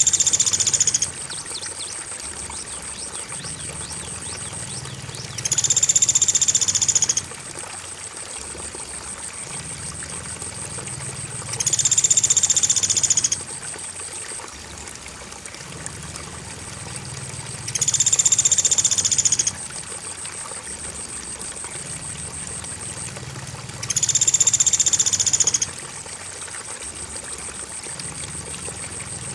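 Looped birdsong training track: a loud, high-pitched bird call lasting about a second and a half repeats five times, about every six seconds. Under it run a continuous high cricket trill and the sound of flowing water.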